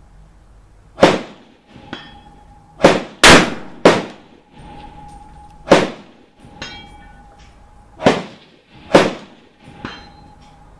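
Gunfire on a shooting range: about seven loud rifle-calibre shots at uneven intervals, two of them less than half a second apart, with a few fainter shots in between.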